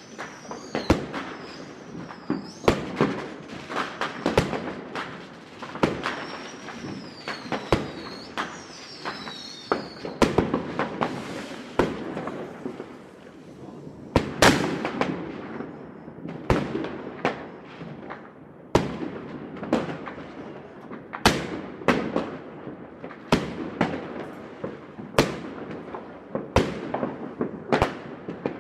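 Fireworks going off over a city: a run of sharp, echoing bangs and crackles, irregularly spaced, one to two seconds apart in the second half. A high wavering whistle rises and falls twice in the first ten seconds.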